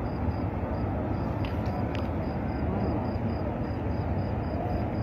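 Steady low outdoor background rumble in a wide open plaza, with a faint high tone pulsing about four times a second.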